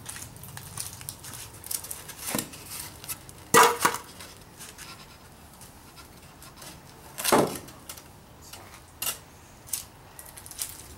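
Loose slabs of EPS foam being lifted off a foam blank and handled: a few sharp knocks and squeaky scrapes of foam on foam. The loudest come about three and a half seconds in and again at about seven seconds.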